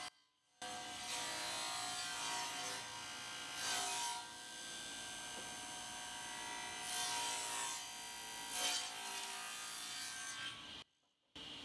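A stationary woodworking machine runs with a steady whine while its cutter cuts grooves along the edges of wooden boards fed past it. Louder cutting noise rises several times as each board passes the cutter. The sound drops out briefly at the start and again near the end.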